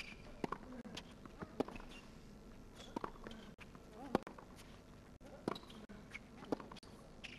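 Tennis rally: racket strikes on the ball about once a second, alternating between the two players, with a player's short grunt on some shots.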